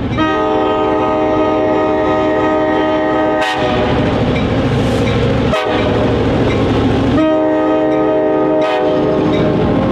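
EMD F7A diesel locomotive sounding its air horn, a chord of several steady notes: one long blast for about three and a half seconds, then a shorter blast about seven seconds in, over the steady rumble of the locomotive's engine and wheels as it passes close by.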